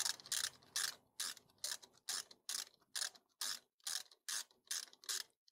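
Ratchet wrench with a hex bit clicking in steady strokes, about two to three clicks a second, as it unscrews a loosened hex-socket CV joint bolt from the drive shaft flange of a 1971 VW T2. The bolt is nearly out.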